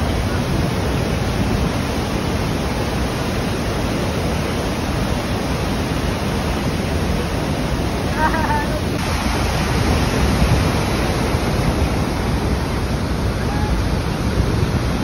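Niagara Falls' falling water rushing, a steady, even noise, with wind buffeting the microphone.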